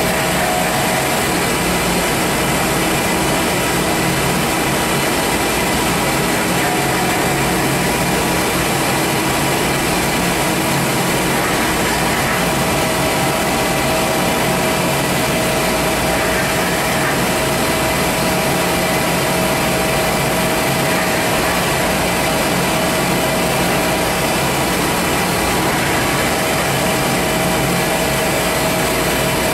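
Giddings & Lewis CNC vertical turning lathe running with its table turning empty: a steady machine hum, with a higher tone that comes and goes.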